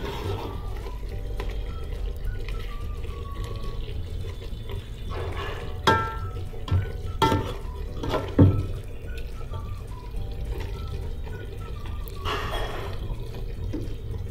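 A metal ladle stirring thick, wet vegetable curry in a large metal pot, sloshing the gravy, with a few sharp knocks of the ladle against the pot partway through.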